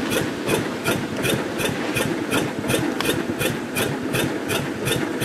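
Hand-cranked bag broadcast spreader grinding steadily, its gears giving an even click about four times a second over a rasping rush of granular fertilizer.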